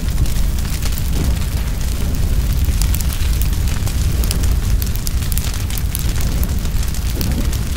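A heap of dried palm fronds burning fiercely: a steady low rumble of flames, with many sharp crackles and pops from the burning leaves.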